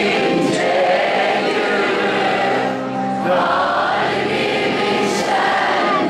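Live concert music: a singer holding long, sliding vocal notes over the band. The sound dips briefly a little before halfway, then the next sung phrase begins.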